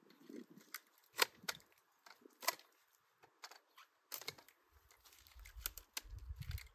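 Long-handled loppers cutting small branches from a tree: several sharp snips and snaps spread out over the seconds, with leaves and twigs rustling. A low rumble comes in during the second half.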